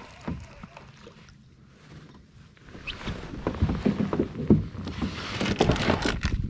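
A plastic tackle box and soft-plastic bait packets being rummaged through: a rapid run of clicks, rattles and rustles that starts about three seconds in and is the loudest sound. Before that there are only a few faint knocks.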